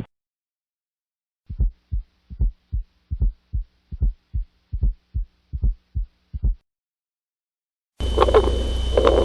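Heart sounds heard through a stethoscope: a regular run of short, low lub-dub beats for about five seconds after a brief silence. Near the end a different, louder recording cuts in with a steady hum and a thin high whine.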